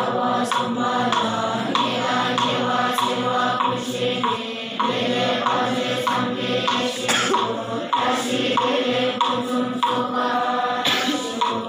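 Many young Tibetan Buddhist monks chanting a prayer together in unison, a steady rhythmic recitation.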